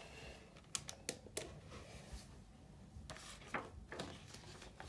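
A page of a comic book being turned by hand: faint paper rustling with a few light ticks, and a longer swish of the page about three seconds in.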